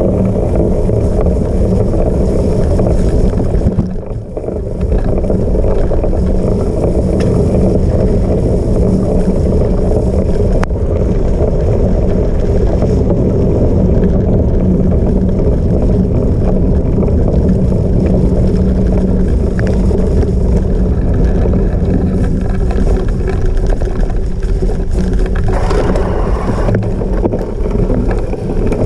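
Loud, steady wind buffeting on the microphone over the rolling noise of a cyclocross bike ridden at race speed on rough off-road ground. The noise dips briefly about four seconds in.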